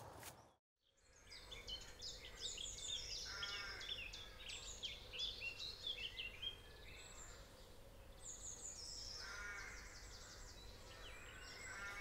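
Birdsong: several birds singing at once, many quick, overlapping high notes, after a brief silence about half a second in. Three lower, wavering calls stand out among them, around three seconds in, again near nine and a half seconds, and at the end.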